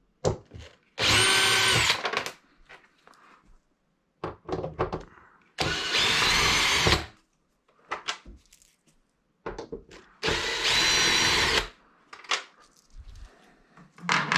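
Power drill backing screws out of the back cover of a flat-screen TV: three runs of the motor, each a second or so long, its whine rising as it spins up and dropping as it stops. Small clicks and rattles come in between.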